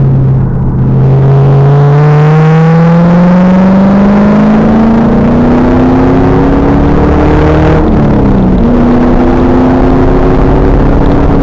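2000 Pontiac Trans Am Firehawk's LS1 V8 accelerating hard, its pitch rising steadily for about eight seconds. The pitch drops briefly at a gear change, then climbs again. The recording is loud and harsh.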